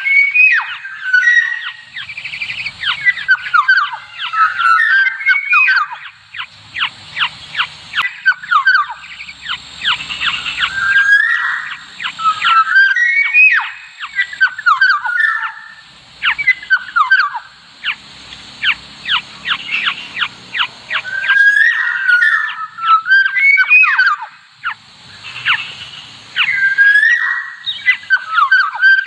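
Black-naped orioles calling again and again: loud whistled phrases that slide up and down, mixed with fast runs of harsh, rasping chatter.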